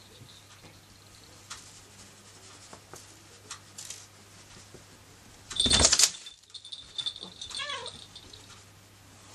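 A cat gives a short, loud cry a little over halfway through, followed by a brief falling call. Faint ticking continues in the background.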